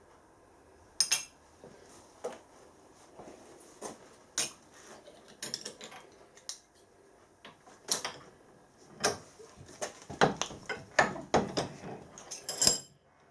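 Irregular metallic clicks, clinks and knocks as a small squashed metal oil box lid is handled and worked straight by hand with tools. They come sparsely at first and grow closer together in the last few seconds.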